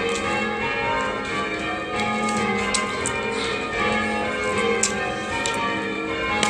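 Church tower bells being change-rung: bells struck one after another, each stroke ringing on so that many tones overlap.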